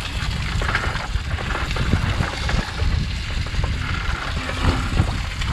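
Wind buffeting the microphone over the wash of the sea around an outrigger boat, with light scrapes of a wooden spatula stirring food in a frying pan.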